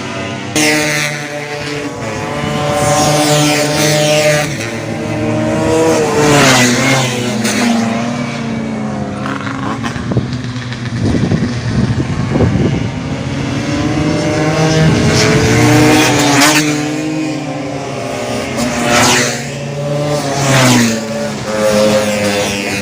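Tuned two-stroke Vespa racing scooter engines running hard at high revs. The engine pitch climbs and then falls away several times over the stretch.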